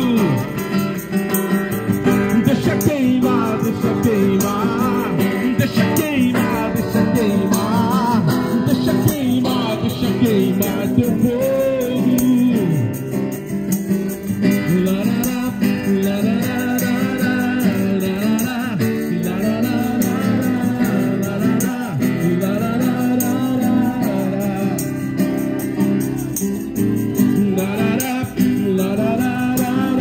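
Christian worship song performed live: a man singing into a microphone over strummed acoustic guitar.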